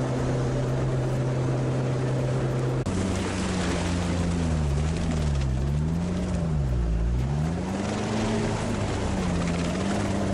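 All-terrain vehicle's engine running, steady at first. After an abrupt change about three seconds in, its pitch rises and falls several times as the engine revs up and down, then settles.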